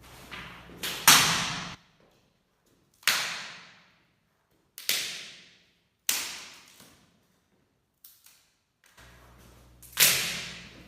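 Firewood being chopped: five sharp strikes of a blade into wood, irregularly spaced, each ringing off briefly.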